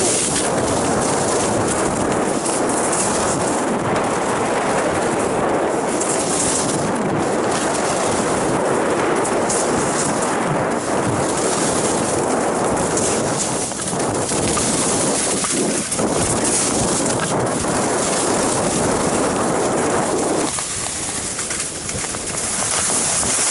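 Steady rushing noise of wind over the microphone mixed with telemark skis hissing and scraping on snow during a fast downhill run. It eases briefly about twenty seconds in.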